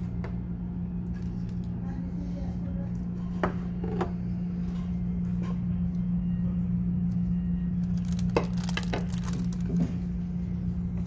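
Plates and dishes being set down on a restaurant table: a couple of sharp clinks about three and a half seconds in, and a cluster more between about eight and ten seconds in, over a steady low hum.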